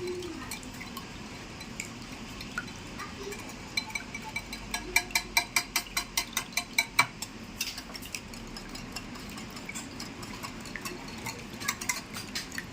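Eggs and milk being beaten in a bowl, the utensil clinking against the side of the bowl in a quick steady rhythm of about five strikes a second for a few seconds midway, with a few more clinks near the end.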